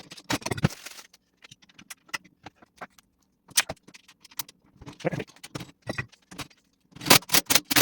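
Metal tools and hardware clinking and clicking at irregular intervals, with a quick run of louder clicks near the end.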